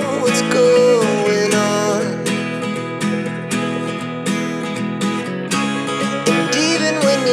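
Background music: strummed acoustic guitar with a sustained, wavering melody line above it.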